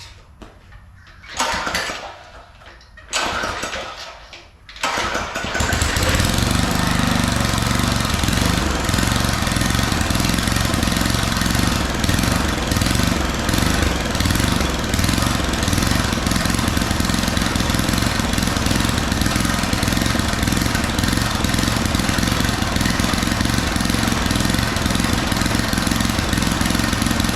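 Small gas engine being pull-started: two recoil pulls, then it catches about five seconds in and runs steadily at a constant speed. The owner says it doesn't run great.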